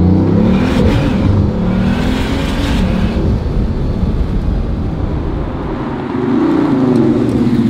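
Bugatti Veyron's quad-turbocharged W16 engine pulling through its newly fitted Opus exhaust. The engine note climbs as the car accelerates near the start, with a rushing hiss after it, and climbs again near the end.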